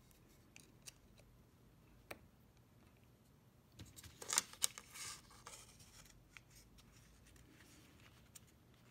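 Small Allen wrenches clicking and scraping in the holes of a stainless faucet spray head as they pry its aerator cap out. Faint, scattered ticks, with a busier run of clicks and scrapes about four to five seconds in.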